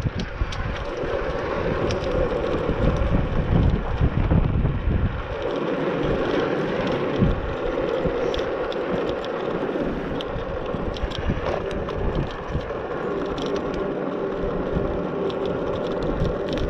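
Cheap 500 W electric scooter being ridden on a hill climb: steady tyre and hub-motor noise with small clicks and rattles from the frame. Wind gusts on the microphone for the first few seconds, and a faint steady whine near the end.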